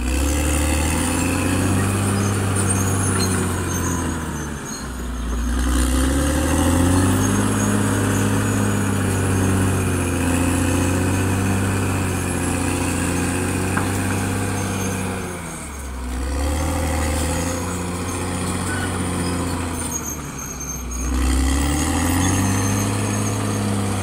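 Caterpillar D6R XL bulldozer's diesel engine working under load as it pushes soil, its note dipping and climbing back up three times, with a thin high whine over it.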